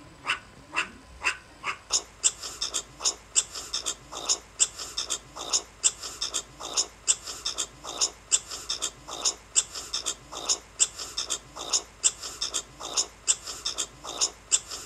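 Meerkat calling: a long series of short, sharp calls repeated about three a second, more widely spaced during the first two seconds.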